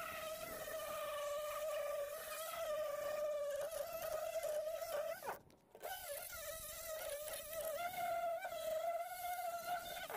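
Angle grinder with a sanding disc running steadily with a high whine as it strips paint off a fibreglass bucket, its pitch wavering slightly as it is pressed against the surface. It cuts out briefly about halfway through, then runs again.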